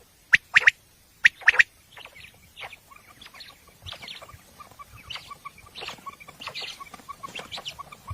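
Quail calling: loud, sharp notes in quick pairs about once a second for the first couple of seconds, then fainter, more varied calling with a fast run of soft ticking notes.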